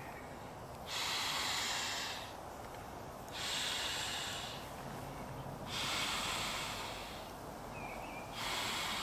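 A man blowing up an inflatable camping pillow by mouth: four long breaths into its valve, each about a second and a half, with short pauses between them to draw breath.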